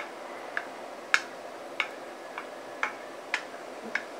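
Wooden spatula knocking against the side of a non-stick wok while it pushes tofu around in thickened sauce: about eight light clicks, roughly two a second.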